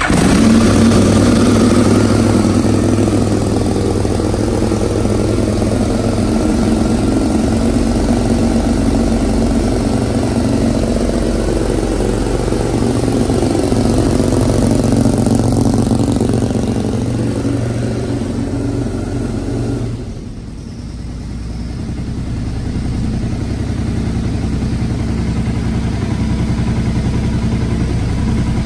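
2003 Aprilia Tuono 1000's twin-cylinder engine, breathing through a GPR exhaust, running at a high fast idle on the choke just after a cold start. About twenty seconds in the choke is backed off and the revs drop to a lower, steady idle.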